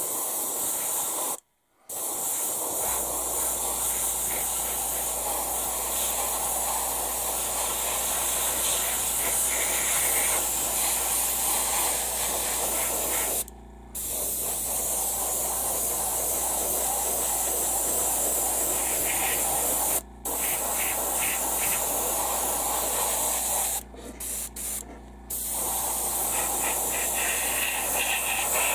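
Gravity-feed airbrush spraying primer with a steady hiss of air and paint. The spray stops briefly several times and starts again.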